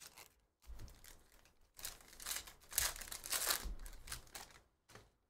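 A foil trading card pack wrapper being torn open and crinkled, a run of crackling rustle lasting about four seconds.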